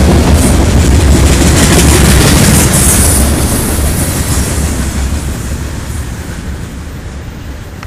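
Covered hopper cars of a freight grain train rolling past, their steel wheels rumbling on the rails. The sound fades from about four seconds in as the end of the train passes and moves away.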